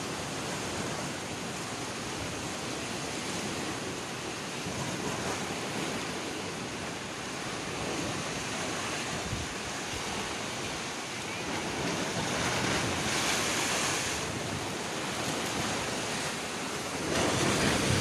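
Sea surf surging and breaking against the foot of a rocky cliff, a continuous wash of water, with wind buffeting the microphone. The surf swells louder about two-thirds of the way through and again near the end.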